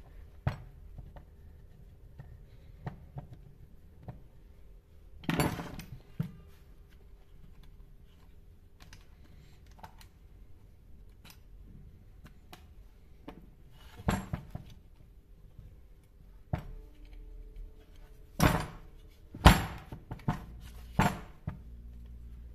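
Scattered knocks and clacks of chainsaw housing parts and tools being handled and set down during disassembly on a workbench, a few more in quick succession near the end.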